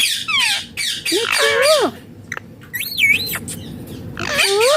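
Indian ringneck parakeet giving a series of about four harsh squawking calls, each arching up and down in pitch, with short gaps between them.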